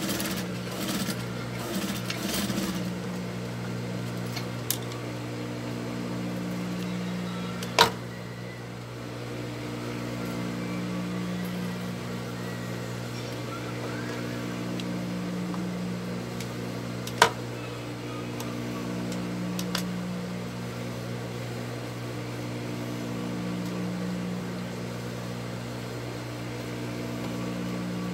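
Industrial sewing machine's motor humming steadily while switched on, with a short run of stitching in the first couple of seconds. Two single sharp clicks, about eight and seventeen seconds in.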